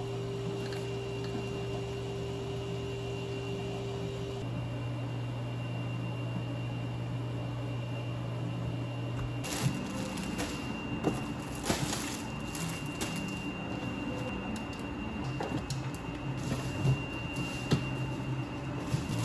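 A steady low hum of commercial under-counter refrigerators. From about halfway this gives way to irregular knocks, clicks and rustles as packaged supplies are dropped into plastic delivery crates and the crates are handled.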